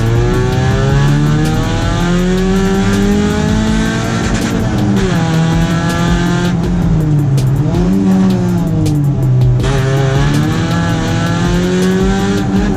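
Competition car's engine revving hard under acceleration, its pitch climbing, dropping sharply about four and a half seconds in, dipping again around eight seconds, then climbing once more as the car is driven fast through a slalom course.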